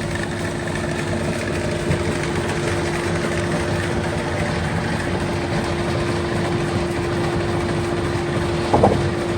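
Machinery of a 1917 sawmill running steadily, with a constant hum and a brief squeak near the end.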